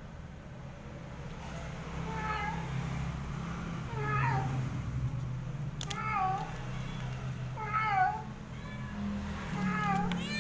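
A domestic cat meowing repeatedly: about six short meows a second or two apart, each dropping in pitch.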